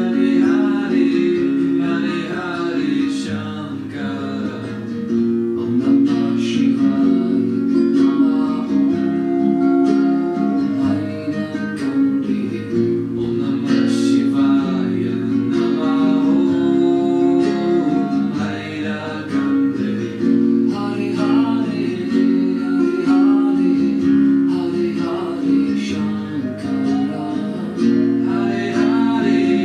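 Music track of plucked guitar with sustained singing.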